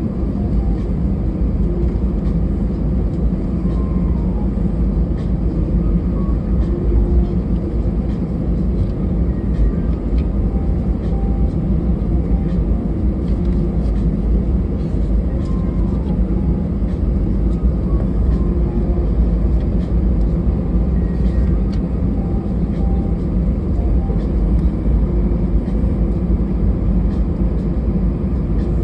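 Cabin noise inside an Airbus A320 after landing: the engines give a steady low rumble with no rise or fall.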